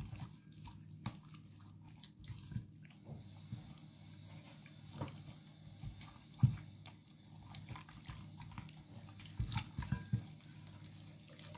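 Quiet wet squelching and smacking of plastic-gloved hands rubbing an oily chermoula marinade into a raw whole chicken, in scattered short squishes over a faint steady low hum.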